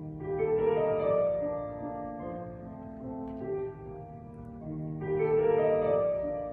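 Gentle instrumental background music: a slow melody of held notes that swells twice, near the start and again about five seconds in.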